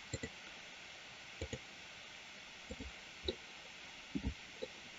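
Faint clicks of a computer mouse, about ten of them, several in quick pairs, over a low steady hiss.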